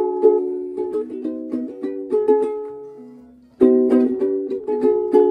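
Music of strummed plucked-string chords in a steady rhythm; it dies away about three seconds in and starts again with a sudden loud chord about half a second later.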